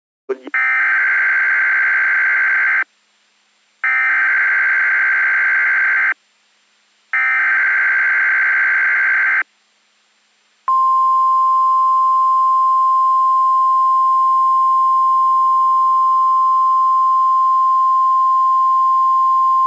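Weatheradio Canada alert opening: three buzzy bursts of SAME digital header data, each about two seconds long with short gaps between. Then, from about ten and a half seconds in, comes the steady 1050 Hz weather-radio warning alarm tone, one pure unbroken tone that marks an alert about to be read.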